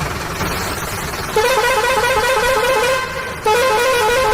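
Toy vehicle's electronic horn sound effect: a warbling tone that plays twice, each time for about a second and a half.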